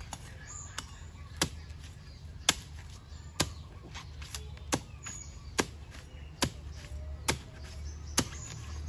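Knife or cleaver chopping on a cutting board, sharp single strokes at a steady pace of about one a second, over a faint low hum.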